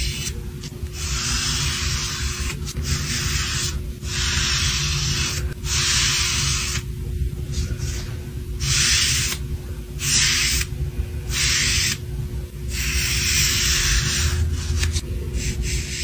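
Foam paint brush dragged across a wooden board, laying on paint in repeated rasping strokes, each about a second long with short gaps between, a dozen or so in all. A steady low hum runs underneath.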